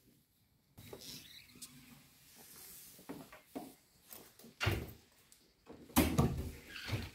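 Hotel room door being opened and handled: soft rustling, a sharp knock a little before the five-second mark, and a louder cluster of knocks and clatter near the end.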